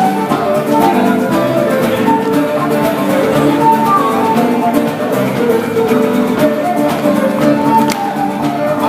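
Contra dance music with guitar under a running melody line, played at a steady level.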